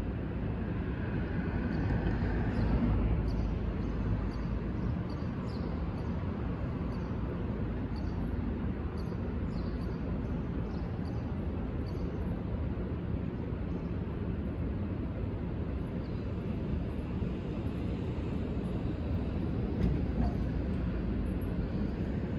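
Steady low city rumble with a distant subway train approaching, growing slightly louder near the end, and faint high chirps now and then.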